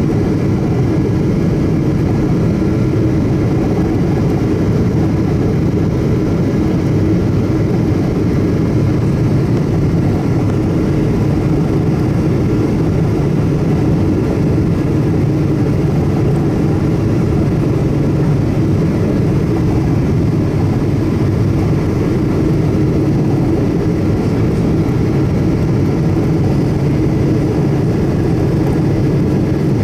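Cabin noise of a Boeing 777-200ER on approach, heard inside the cabin beside the engine: the GE90 turbofans and rushing air make a steady loud rush with a low drone that does not change.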